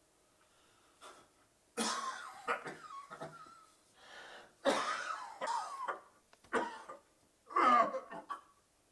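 An elderly man's coughing fit, in four bouts beginning about two seconds in; he is coughing up blood.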